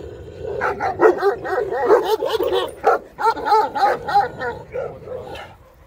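Kangal shepherd dogs barking, a rapid run of short calls that fades out near the end.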